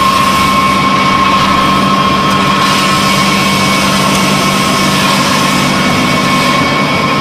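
Vertical wood sawdust pellet mill running while it turns out pellets: a steady, loud mechanical drone with a constant high whine over it.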